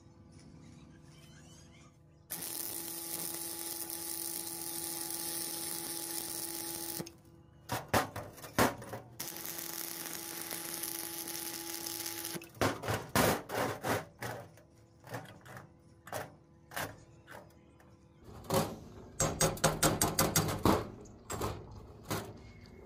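Electric arc welding: two spells of steady crackling hiss with a hum, each a few seconds long. Between and after them come sharp knocks and taps on metal, ending in a fast run of taps near the end.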